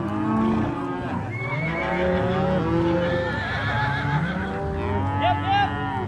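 A herd of cattle mooing and bawling, many calls overlapping at once. A few higher-pitched calls stand out about five seconds in.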